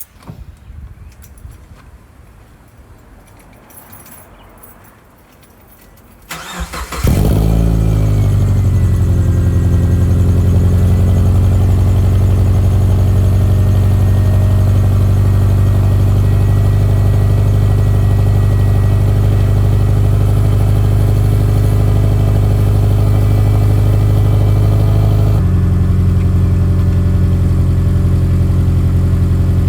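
A 2005 Subaru Forester's flat-four boxer engine starting about seven seconds in, briefly flaring up, then idling steadily, its tone shifting about 25 seconds in.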